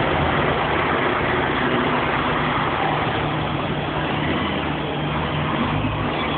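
Volvo Olympian double-decker bus's Volvo TD102KF six-cylinder turbodiesel idling with a steady low hum.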